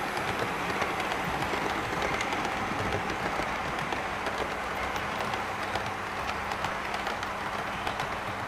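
HO-scale model passenger coaches rolling along the layout's track: a steady rolling rush with light, irregular clicks of the wheels over the rail joints and a faint steady hum underneath.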